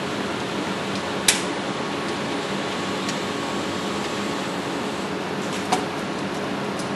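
Steady background hum, with two sharp clicks, about a second in and again near the end, from the metal laser arm knocking against its wall mounting plate as it is held in place.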